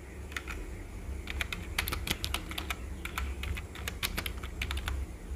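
Typing on a keyboard: irregular key clicks, a few a second, over a faint low hum.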